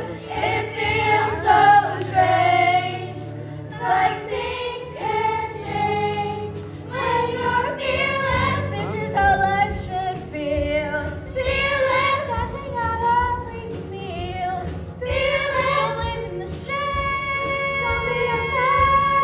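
Young cast singing a musical-theatre song, several voices together over accompaniment, holding one long note near the end.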